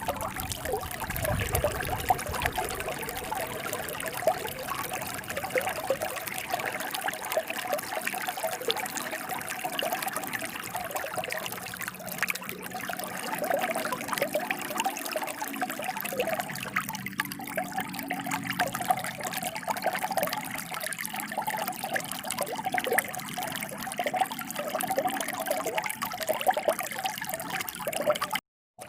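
Running water trickling and splashing steadily. The sound cuts out for a moment near the end.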